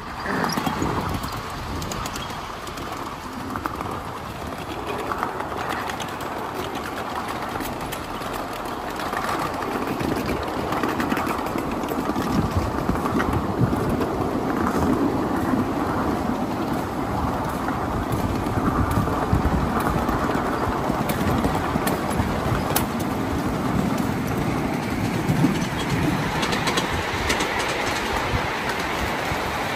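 1/8-scale coal-fired live steam train running along the track, with wheels clattering over the rails. The running noise grows louder over the first half and then holds steady.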